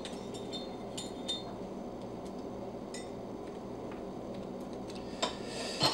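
Faint, scattered small clicks and clinks of the Ultimaker 3 print core's threaded brass parts and plastic body as they are handled and screwed together by hand, with two sharper clicks near the end.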